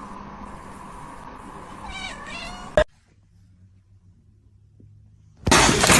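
A cat meows briefly about two seconds in; after a short quiet stretch, a loud cat meow starts near the end.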